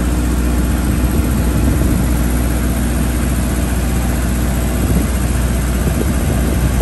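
Diesel engine running steadily at idle, a loud, even drone with no change in speed.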